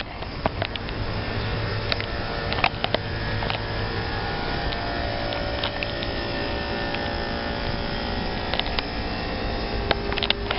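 Large Goodman packaged air-conditioning unit running: a steady low mechanical hum with a few steady tones above it, and a few short clicks.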